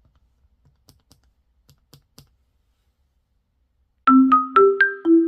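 Light keystrokes on a mechanical keyboard with SPM Pebble switches, a few scattered taps over the first two seconds. About four seconds in, loud music of quick struck, ringing notes starts and is the loudest sound.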